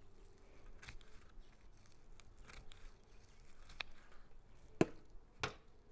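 Gloved hands rustling and digging in dry potting soil while pulling apart old succulents, with faint scrapes and crackles and two sharp snaps near the end.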